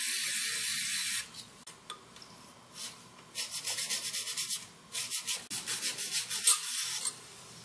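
Aerosol carburetor cleaner sprays in a steady hiss, stopping about a second in. After a short pause, a pipe cleaner scrubs rapidly back and forth inside the kickstand's clevis-pin hole in the engine case, cleaning it out.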